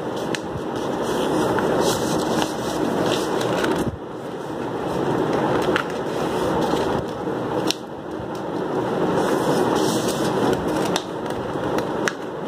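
Pink craft paper being folded and creased by hand on a wooden tabletop: a rustling, scraping noise that swells and breaks off about every four seconds, with a few sharp clicks.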